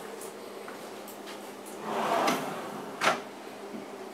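A Fabuwood Classic series cabinet drawer with a wooden dovetailed box is slid shut. A brief sliding rush about two seconds in is followed by a sharp knock as the drawer closes.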